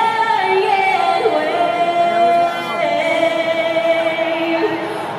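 A woman singing long, held high notes with music.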